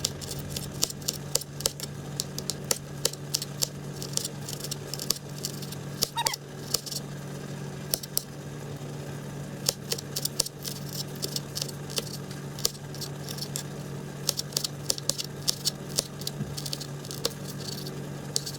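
Oil crackling and popping irregularly in a frying pan, over a steady low hum.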